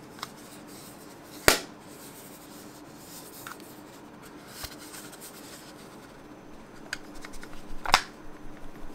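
Plastic earbud charging case of the Oladance OWS Pro being handled: the lid shuts with a sharp click about a second and a half in. Near the end there is light rubbing and a few small clicks, then another sharp click as the case is turned in the hand.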